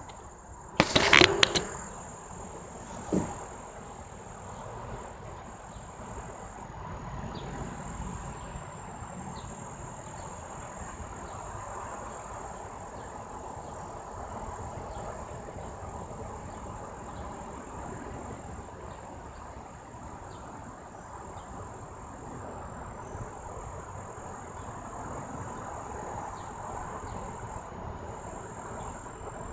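A 2001 Goodman air conditioner starting up: a loud burst about a second in and a sharp click around three seconds, then the unit running with a steady, even noise.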